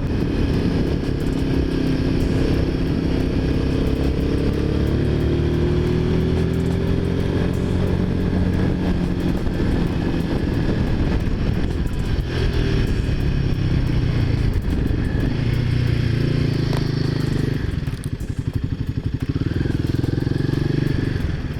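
Motorcycle engine running under way, its pitch slowly rising through the first several seconds as it gains speed, then holding steadier. It gets a little quieter near the end.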